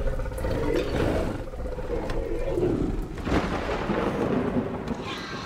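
Film soundtrack of heavy rain with thunder rumbling and a sharp crack about three seconds in, under low growls from the Indoraptor.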